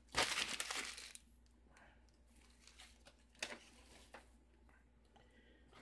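Paper packing material rustling and crumpling for about a second, then quiet handling with a couple of faint clicks.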